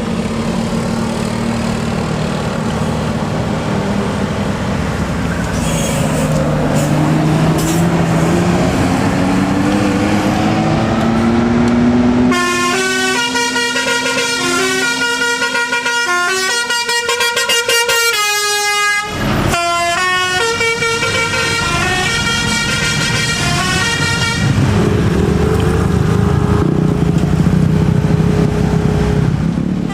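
Bus 'telolet' multi-tone musical horns playing a quick tune of stepped notes over the bus's running engine. The first dozen seconds are engine drone with a slowly rising tone. Then the melody starts and runs, with a brief break near the middle, before giving way to steady held horn tones.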